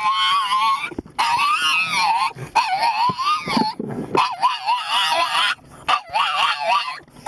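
A dog giving a run of long, high-pitched, wavering whining cries, its pitch wobbling up and down, with short breaks between them.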